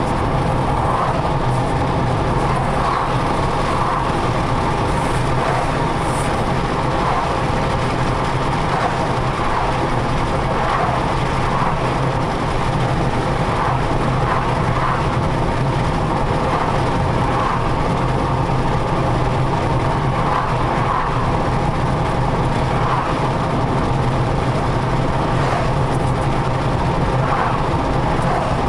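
Car driving steadily: even engine and tyre noise heard from inside the cabin.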